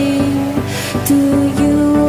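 Background music: a melody over a steady beat.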